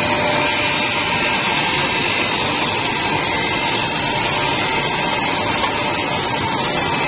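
Automatic glass edge polishing machine running, its wheels grinding and polishing the edges of flat glass sheets as they feed along the conveyor. The sound is a steady, even noise with a few faint steady tones in it.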